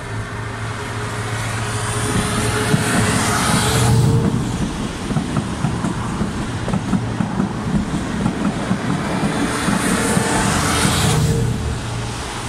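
A test train top-and-tailed by two class 73/9 electro-diesel locomotives passes close by underneath. The leading locomotive's diesel engine drones as it approaches and cuts off sharply about four seconds in as it passes under. Then the coaches rumble over the rails, and the rear locomotive's engine swells and cuts off the same way near the end.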